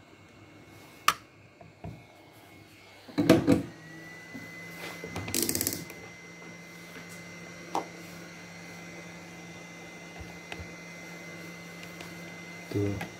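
Tools being handled and set down on a repair bench: a click about a second in, a louder knock a few seconds in, a short rustling burst, a small tick and another knock near the end. Under them runs a faint steady high tone with a low hum, such as a hot air rework station left running.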